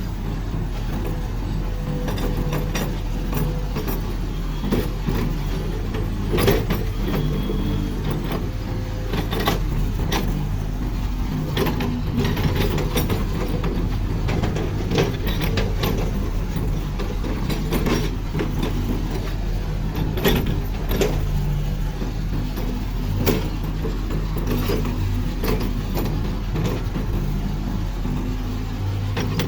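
Hitachi UH25-3 hydraulic excavator running with its diesel engine at a steady speed, with frequent sharp metallic clanks and knocks as the machine works.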